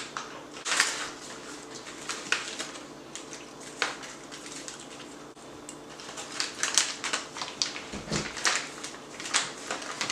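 Crunchy snacks being chewed: irregular crisp crunches and crackles, coming thicker in the second half, with a low thump about eight seconds in.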